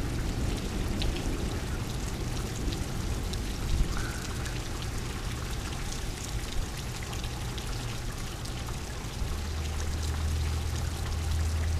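Heavy rain falling steadily, with water pouring and individual drops ticking close by. A low steady rumble comes in near the end.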